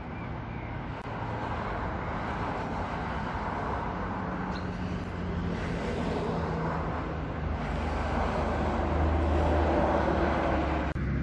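Outdoor ambient noise: a steady low rumble with a mid-range hiss, swelling slightly near the end.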